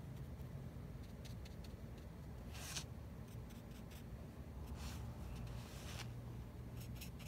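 Short, irregular scratching strokes of a drawing tool on paper while a cat portrait is drawn, the strongest about a third of the way in and a quick run of them near the end, over a low steady hum.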